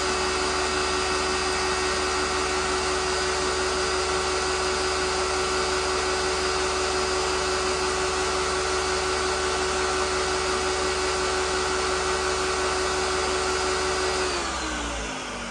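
Electric kitchen appliance motor running steadily at full speed, then switched off about fourteen seconds in, its hum falling in pitch as it winds down.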